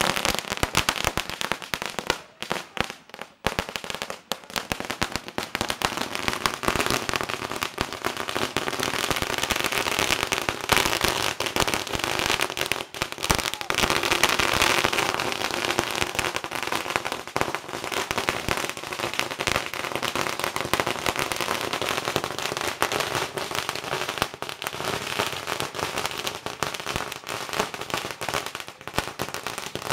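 Firecrackers going off in a dense, continuous run of rapid bangs and crackles. A little sparser in the first few seconds, then unbroken.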